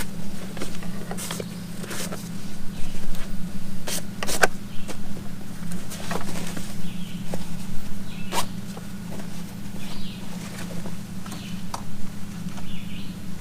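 Gear being handled and rummaged through: irregular rustles, light knocks and clicks at uneven intervals, over a steady low hum.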